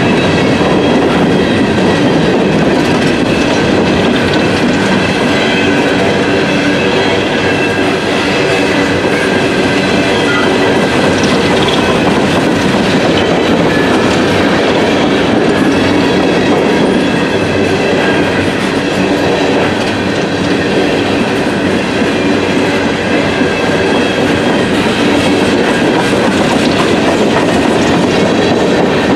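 Empty CSX coal train's hopper cars rolling steadily past close by, the wheels rumbling and clattering on the rails, with a faint high squeal from the wheels.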